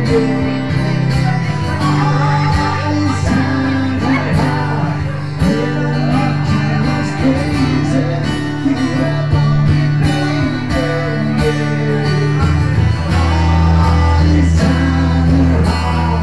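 Live acoustic guitar music played through a PA: strummed guitar over sustained low bass notes, with a steady rhythm.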